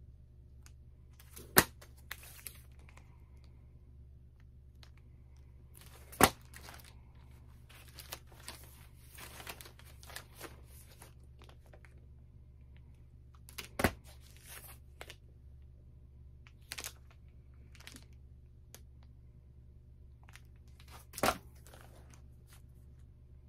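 Vinyl LP records in clear plastic outer sleeves being handled and swapped one after another: plastic sleeves crinkling and rustling, with four sharp snaps several seconds apart, over a low steady hum.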